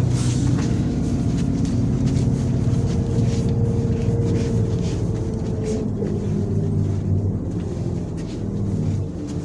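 MAZ 103.486 city bus running on the road, heard from inside the passenger cabin: a steady low engine and drivetrain drone, with a higher whine that falls away about six seconds in.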